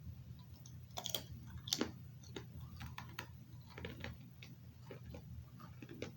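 Crunching of baked pita chips being chewed: irregular crisp cracks and crackles, the loudest about one second and just under two seconds in, over a low steady hum.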